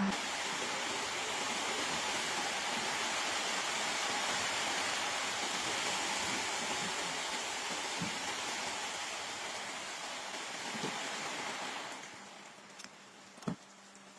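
A steady rushing hiss that stops about twelve seconds in, with a few light knocks.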